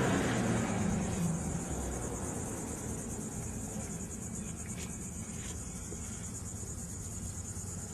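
Steady high-pitched trilling of insects, a fast even pulsing, over a low background rumble, with a couple of faint clicks about five seconds in.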